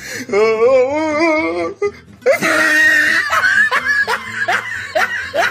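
A laugh whose pitch wobbles up and down in quick, even pulses for the first couple of seconds, then, after a brief lull, a louder and denser stretch of laughter mixed with music.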